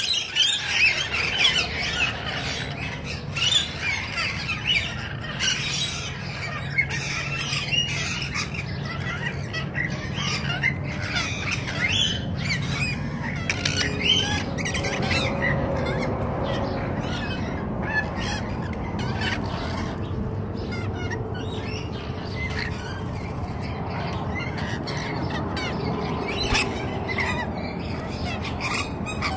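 Rainbow lorikeets squawking: many short, high calls overlapping, thickest in the first few seconds and carrying on more thinly after.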